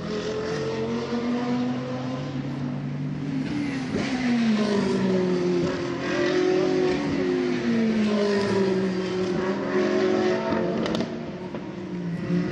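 Several GT3 race car engines sounding at once at speed. Their pitch repeatedly falls as cars pass by or lift and brake, and rises again as they accelerate.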